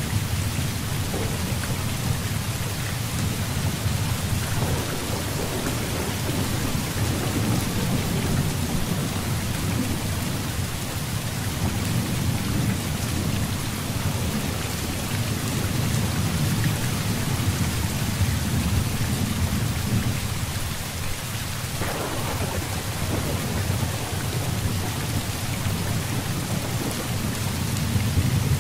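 Heavy rain pouring steadily, with thunder rumbling low underneath and swelling and fading. About three-quarters of the way through there is a brief, sharper thunderclap.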